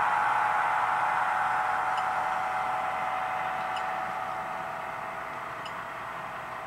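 Model freight train rolling past on the track: a steady whirring hiss of wheels and motors that fades as the locomotives draw away, with faint clicks about every two seconds.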